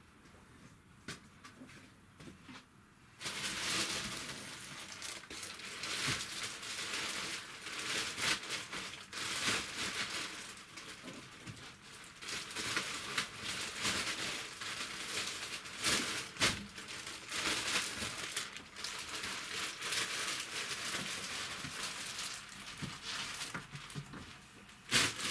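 Plastic bag being crinkled and rustled as it is handled, starting about three seconds in, full of sharp crackles, with a louder crunch near the end.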